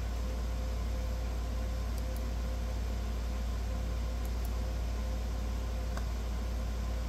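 Steady low hum and hiss with a faint steady tone over it, and one faint click about six seconds in.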